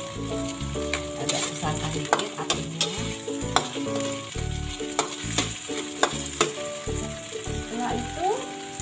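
Sauce-coated sliced sausage sizzling in a wok as it is stir-fried, a spatula scraping and clicking against the pan many times.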